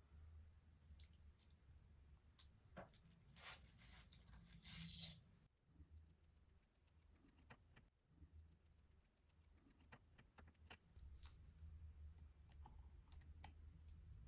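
Quiet, small clicks and light scraping from work on a hand-wind wristwatch with small metal tools, over a faint low hum. In the middle comes a short run of fast, even ticks.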